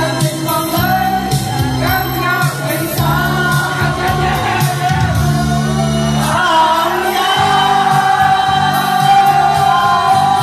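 A group singing a song together over instrumental backing, ending on a long held note near the end.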